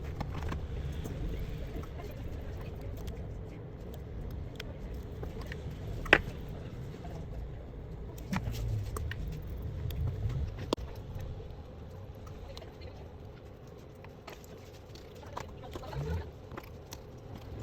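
Scattered small clicks and taps of hand tools working on a smartphone, with one sharper click about six seconds in, over a low steady rumble.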